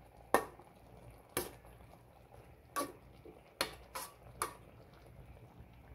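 Metal spatula knocking against a wok while stir-frying, six separate sharp clinks at uneven intervals.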